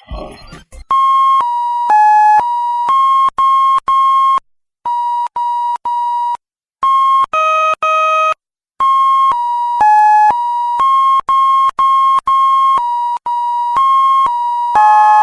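A long run of short electronic beeps, mostly at one pitch with some higher and lower ones mixed in, separated by brief gaps. A few beeps in the middle are quieter.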